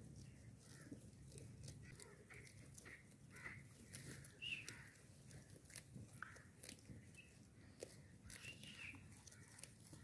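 Goats biting off and chewing grass close by, an irregular run of faint crisp clicks and tearing rips. Brief bird calls come through a few times.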